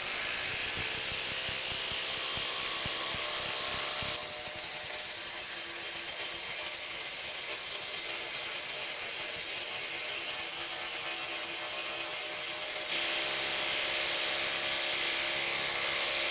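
Bosch IDH182 'Freak' 18 V brushless impact driver hammering without a break as it drives a long 1/2 x 8 in lag screw into stacked pine boards, played back sped up so the impacts run together into a steady buzz. It drops a little in level about four seconds in and comes back up near the end.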